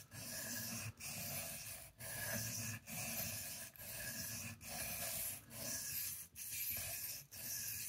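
Knife blade stroked in nine even, scratchy passes across a wet Shapton Kuromaku 1000-grit ceramic whetstone, a little more than one stroke a second. The rasp is the burr on the edge dragging on the stone.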